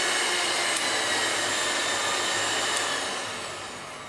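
Electric hand mixer whipping a thick cream-and-mango kulfi mixture in a steel pot: a steady motor whine with two faint ticks. About three seconds in it is switched off and winds down.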